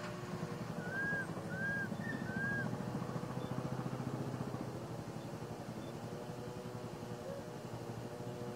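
An engine runs steadily in the background throughout. About a second in, three short high calls that rise and fall, the thin cries of an infant macaque.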